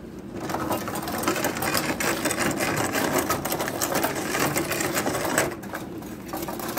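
Metal control rods of a 1962 Munro table hockey game being worked rapidly by hand, a dense, fast clicking rattle of rods and players moving in their slots. It stops about five and a half seconds in.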